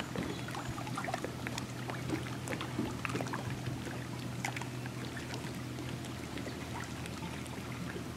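Lake water lapping and trickling with many small clicks, over a steady low hum that weakens about six seconds in.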